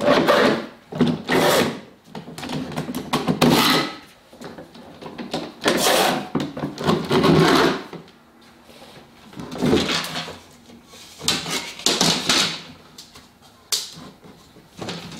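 Bar clamps being loosened and slid off a glued bent wooden lamination: an irregular run of knocks, clacks and scrapes of the clamp heads against their steel bars and the wood, one every second or two.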